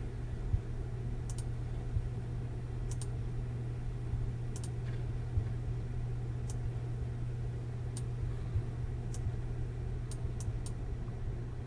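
About a dozen light, sharp clicks, single and irregularly spaced, a few close together near the end, over a steady low hum.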